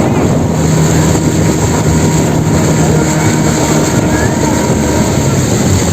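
Motorboat engine running steadily, with a low hum that drops away about four seconds in while the engine noise goes on.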